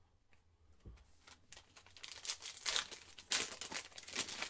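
Foil wrapper of a 2021 Panini Mosaic football card pack being torn open, crinkling and crackling; it grows louder over the last second and a half.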